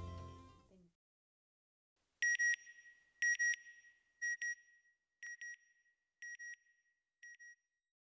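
Background music fading out, then electronic beeps in pairs, one pair a second, six pairs in all, growing fainter.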